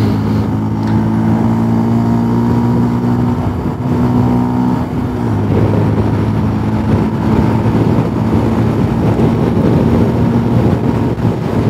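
Motorcycle engine running steadily at road speed, its note changing about five seconds in, with wind noise on the helmet-mounted microphone growing stronger after that.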